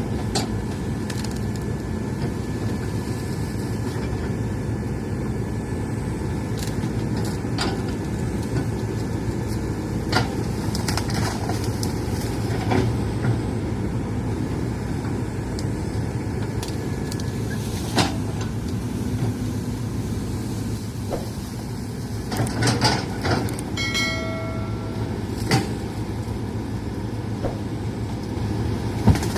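Hitachi excavator's diesel engine running steadily, with scattered knocks from the machine at work and a brief squeal about two-thirds of the way through.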